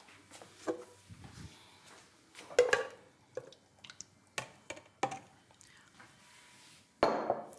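Kitchen handling sounds: a series of sharp knocks and clinks of bowls and utensils being set down and moved, the loudest about two and a half seconds in. A louder, rushing noise begins near the end.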